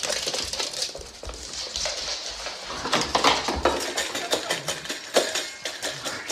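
A dog eating from a metal food bowl on a hard floor, with a run of rapid clinks and scrapes as the bowl is knocked about.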